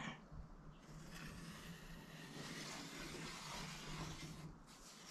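Faint rubbing and scratching of a felt-tip marker and a plastic level on the aluminium spar web as station lines are marked, with a low steady hum underneath.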